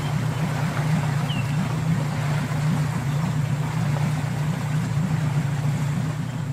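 An engine idling with a low, steady hum.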